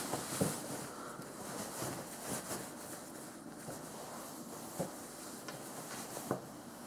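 Faint rustling of a jacket being settled on and handled, with a few soft knocks over a low steady hiss.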